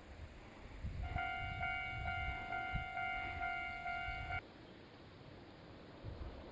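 Japanese level-crossing warning bell ringing in an even, repeated electronic ding at about two strokes a second, then stopping suddenly after about three seconds.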